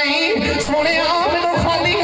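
A man singing unaccompanied into a microphone, holding long notes that waver and bend in pitch: Islamic devotional recitation in Urdu/Punjabi.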